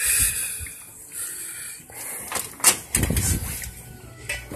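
A house door being opened and shut: a rushing noise at first, then a few sharp clicks and a cluster of low thumps about three seconds in.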